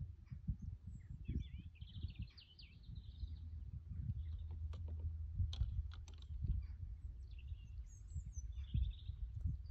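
Wind buffeting the microphone with a low, gusty rumble. A small bird chirps and warbles in short phrases, about a second in and again near the end.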